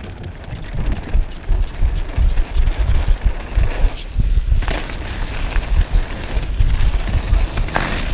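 A mountain bike running fast down a dirt trail: a steady low rumble of wind buffeting and tyres over dirt and leaves, with the bike rattling over bumps. There are two louder clatters, one about halfway and one near the end.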